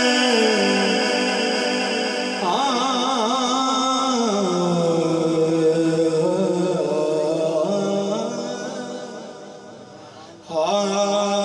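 A man singing a devotional Punjabi kalam into a microphone over a PA system, drawing out long held notes that waver and slide between pitches. Near the end his line tails off and, after a short dip, a new phrase starts.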